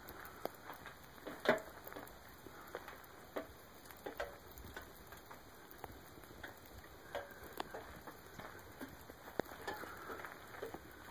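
Ice melting off pine branches, dripping and shedding in an irregular pattering of small ticks and taps, a few each second, with one louder tap about a second and a half in.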